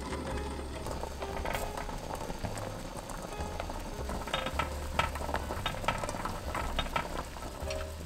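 Pot of water boiling, with a run of light clicks and knocks about halfway through, under swing-style background music with a walking bass line.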